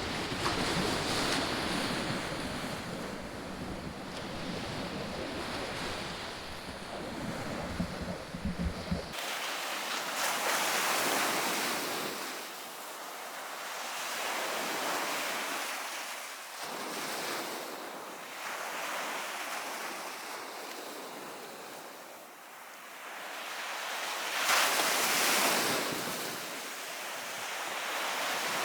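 Sea waves breaking and washing up the beach, the surf rising and falling in slow surges every few seconds. Wind rumbles on the microphone for about the first nine seconds and stops abruptly.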